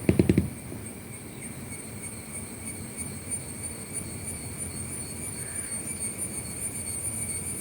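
A quick burst of rapid clicking right at the start, then insects (crickets) trilling steadily in a high-pitched chorus over a low outdoor hum.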